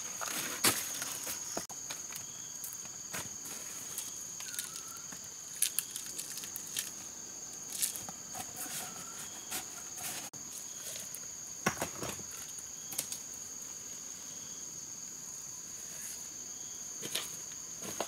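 Steady high-pitched insect drone, with scattered crackles of dry bamboo leaves and bamboo shoots being handled and trodden on.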